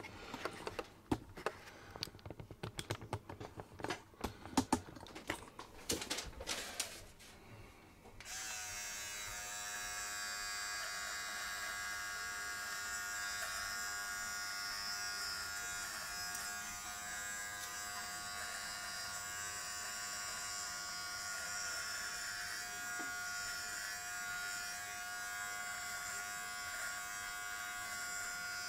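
Clicks and knocks of the camera being handled for the first several seconds. About eight seconds in, a Philips Norelco Multigroom 7000 battery trimmer with a beard-trimmer head switches on and runs with a steady buzz as it is passed over the scalp to cut the hair.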